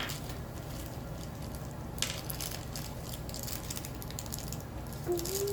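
Plastic packaging crinkling and crackling as it is handled and pulled at, mostly from about two seconds in, with a sharp click at the start.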